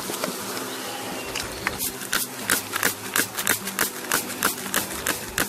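Spray bottle squirting sugar syrup onto a package of honey bees in quick, even sprays, about three a second, starting about a second and a half in, over a faint low steady hum.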